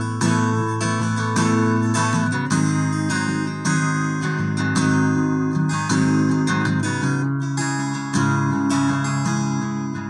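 Acoustic guitar strummed in a steady rhythm, an instrumental break in a country song played live.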